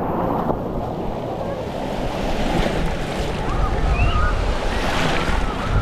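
Wind buffeting the microphone over a steady rush of water, with gusts growing stronger in the second half and a few faint, short high-pitched sounds.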